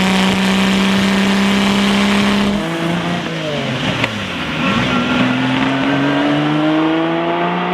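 Lamborghini Miura S V12 engine running hard at a steady pitch. About two and a half seconds in the pitch drops away over a second or two, then climbs steadily as the car accelerates again.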